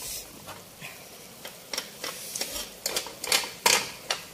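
Metal tongs stirring noodles in a pan of soup, clicking and tapping against the pan: a string of irregular sharp clicks, sparse at first and then closer together and louder in the second half.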